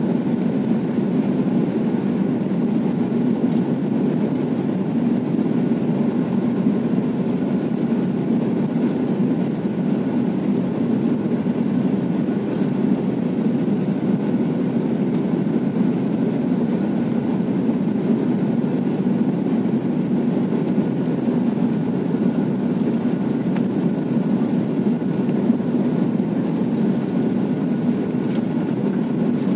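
Steady engine and airflow noise of an Airbus A330-300 heard inside the passenger cabin, a constant low rumble with a faint steady whine above it, during the approach to landing.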